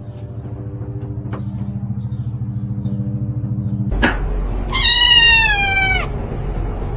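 A cat meowing once, a long call falling in pitch, about five seconds in. Before it there is a low, steady, fast-pulsing hum, and a sudden noise comes just before the meow.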